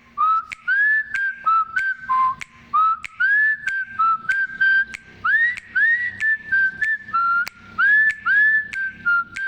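Huawei Nova 7i ringtone: a whistled melody of short notes, many sliding up into their pitch, over sharp clicks that keep a beat of about two a second.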